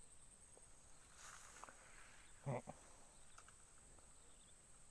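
Near silence with a steady, high-pitched insect chirring running throughout, a soft hiss about a second in, and a short low voice-like sound about halfway through.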